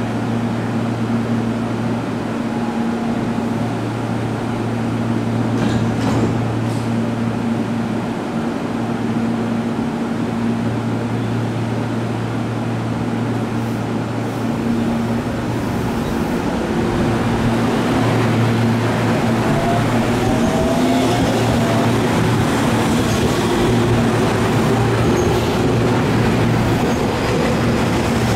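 Tobu 30000 series electric train standing at a platform, its onboard equipment giving a steady low hum. In the second half the train noise grows louder, with a few brief rising whine tones.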